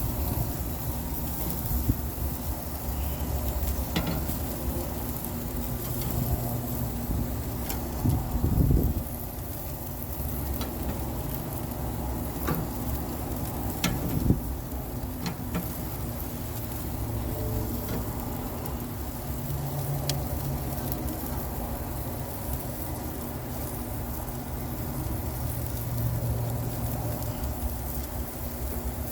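Jerk chicken and pork steaks sizzling on a grill: a steady hiss broken by a few sharp crackling pops, over a low rumble.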